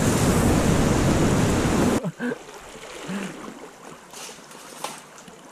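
Loud, steady rush of whitewater rapids around a kayak. About two seconds in it cuts off abruptly to quieter slow-moving water with a few faint splashes.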